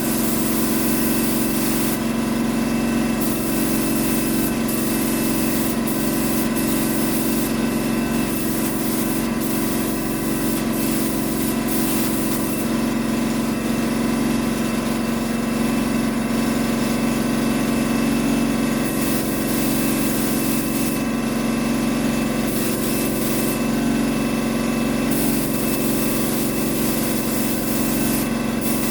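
Paint spray gun hissing in passes as clear coat is sprayed, the hiss starting and stopping every few seconds, over a steady motor hum.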